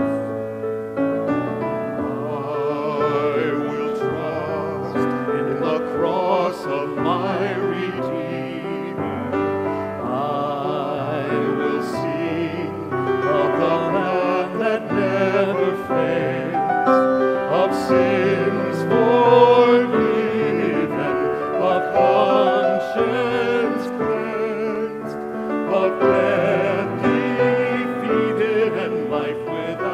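Small mixed group of men and women singing a worship song together with vibrato, accompanied by piano.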